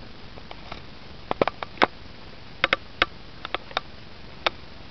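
A dozen or so sharp, irregular clicks and taps over a steady hiss: handling noise from a camera being fumbled with.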